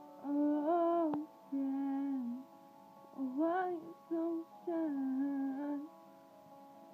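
A woman singing a melody in short phrases over a steady backing of held instrumental chords.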